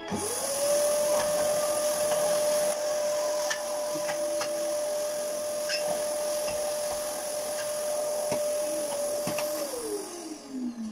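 Canister vacuum cleaner switched on, its motor whine climbing quickly to a steady pitch and running with a hiss of airflow and a few small clicks from the hose and nozzle. About a second before the end it is switched off and the whine falls away as the motor spins down.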